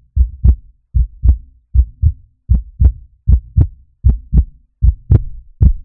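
Heartbeat sound effect on the soundtrack: pairs of deep thumps, about one pair every three-quarters of a second.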